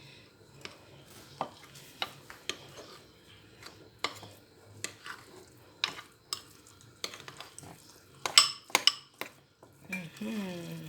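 Spoon mixing a thick, wet paste of ground egusi and blended onion: soft squelching and scraping with irregular clicks of the spoon against the dish, and a quick run of louder clicks about eight seconds in.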